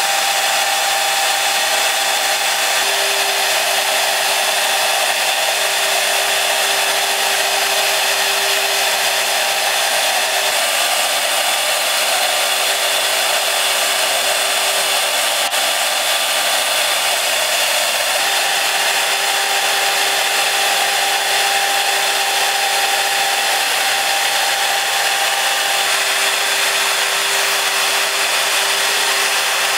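High-speed spindle of a five-axis CNC machining centre running with a steady whine while its small end mill cuts a stone block under water coolant, with an even noise of cutting beneath it.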